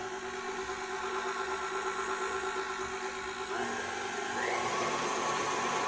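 KitchenAid tilt-head stand mixer running steadily, beating a cream cheese and pumpkin purée cheesecake batter in a glass bowl. Its pitch steps up and it gets a little louder about three and a half seconds in.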